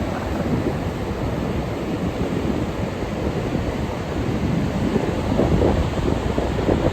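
Stormy sea: surf churning and waves breaking steadily, with a louder surge of breaking water about five seconds in. Wind rumbles on the microphone.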